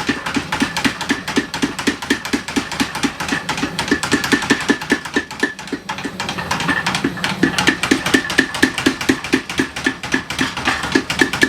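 Vintage 25 kg Sakamoto mechanical belt hammer pounding hot steel in a fast, even rhythm of about five blows a second as a san-mai knife blade is forged to shape, each blow with a metallic ring.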